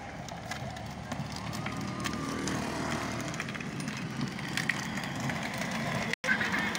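Children's battery-powered ride-on ATV driving on asphalt: its electric motor and gearbox whine, with the wheels rolling on the road, growing louder as it comes closer. The sound drops out for an instant near the end.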